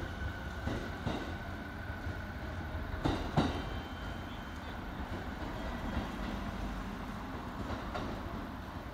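E217 series electric multiple unit pulling out and running away from the platform, a steady rumble with its wheels clacking over rail joints, the loudest two clacks about three seconds in.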